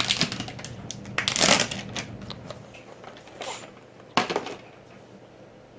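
Rustling, crinkly handling noises as cheese is added to a bowl, in several short bursts with the loudest about a second and a half in.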